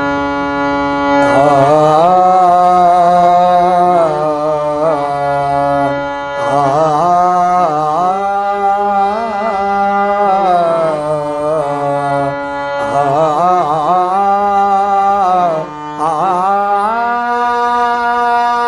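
A man singing a Marathi Vitthal bhajan (abhang) in long, ornamented phrases over a held harmonium drone, with short breaks between phrases.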